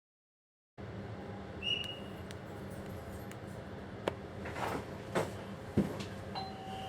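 Train driver's cab sound: a steady low hum with scattered clicks and knocks from the cab controls, a short high beep about two seconds in, and a steady two-tone signal beep that starts near the end. The sound cuts in about a second in.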